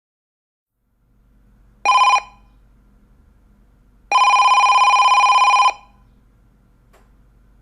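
Telephone bell ringing: one short ring, then a longer ring of about a second and a half, each with a fast rattling flutter.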